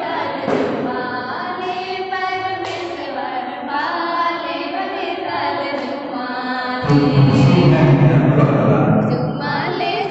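A congregation sings a hymn in unison, with women's voices to the fore. A loud low rumble joins about seven seconds in and comes back near the end.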